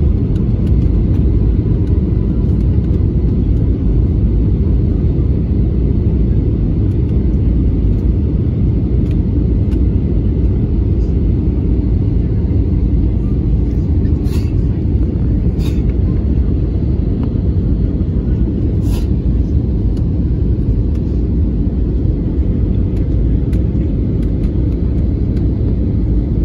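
Steady low rumble of an airliner's engines and rushing air heard inside the passenger cabin during the descent to land, with a few short clicks a little past halfway.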